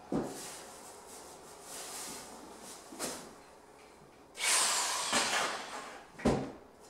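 Corded drill with a paddle mixer, run briefly for about a second and a half in a plastic bucket of drywall texture compound, with a falling whine as it starts. A few sharp clunks of the paddle and drill against the bucket come before and after it.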